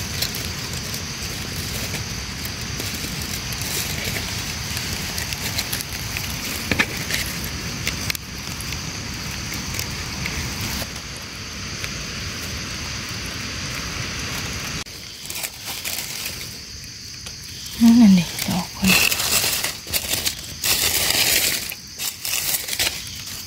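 Dry leaf litter rustling and crackling as it is turned over by hand to uncover mushrooms. The sound grows louder and more broken about fifteen seconds in, over a steady high hiss.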